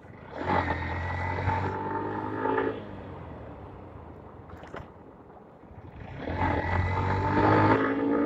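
Honda X-Blade 160's single-cylinder engine pulling under throttle twice, about two seconds each time, with quieter running in between. Near the end the revs fall away as the throttle closes.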